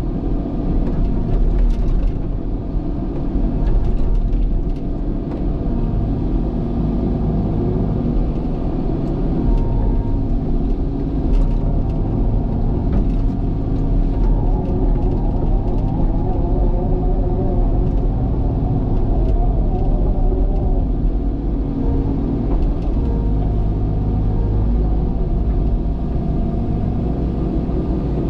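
Diesel engine of a heavy earthmoving machine running steadily with a deep rumble, with scattered light clicks and knocks over it.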